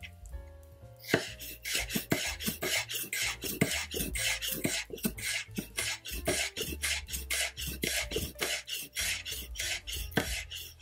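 Kitchen knife slicing a garlic clove thinly on a wooden cutting board: quick, even chopping taps of the blade on the board, about three or four a second, starting about a second in.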